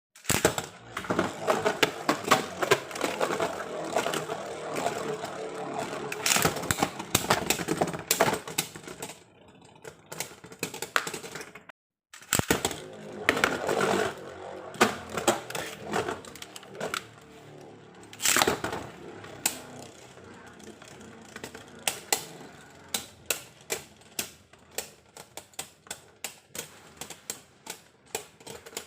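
Rapid clicking and rattling of small plastic and metal Beyblade spinning-top parts, in two long busy stretches with a short pause between, then sparser separate clicks.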